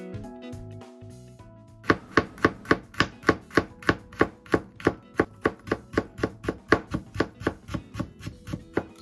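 Chef's knife chopping garlic on a cutting board: a steady run of quick, even strokes, about three or four a second, starting about two seconds in. Quiet background music underneath.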